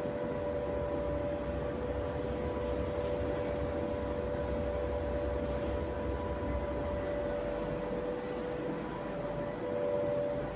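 A steady mechanical hum holding a constant pitch over a low rumble.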